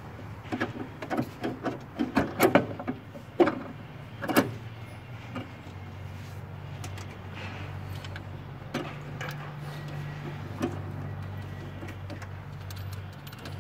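Sharp metal clinks and taps as brake-line fittings and a spanner are worked onto a new brake master cylinder, a quick run of them in the first few seconds and a few scattered ones later, over a steady low hum.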